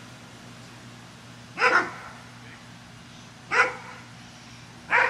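An American bully dog barks three times, about one and a half to two seconds apart; the first is a quick double bark. These are excited demand barks while he waits for his fetch toy to be thrown.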